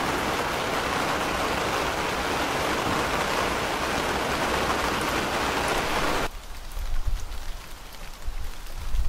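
Recorded rain sound effect, a steady dense hiss of falling rain that cuts off suddenly about six seconds in. A few low thumps follow.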